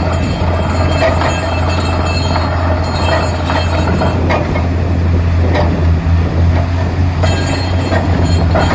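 Borewell drilling rig with its air compressor running: a steady, loud low drone with irregular knocks and clanks from the drilling.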